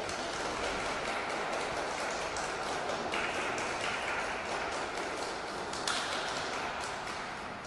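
Audience applauding in an ice rink, a dense patter of many hands clapping that dies away near the end.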